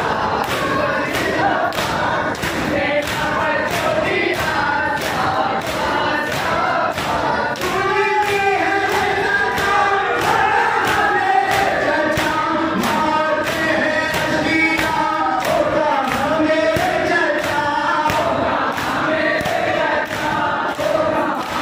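Group of men chanting a Shia matam nauha in unison, with chest-beating thumps in a steady rhythm of about two strikes a second.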